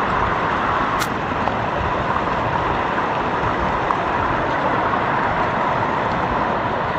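Steady, loud rushing of heavy rain and floodwater, with a single brief click about a second in.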